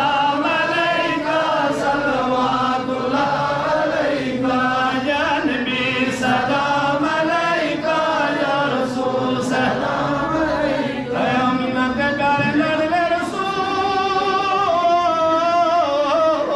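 Several voices singing together in a chant-like melody that carries on without a break, the pitch wavering as it goes.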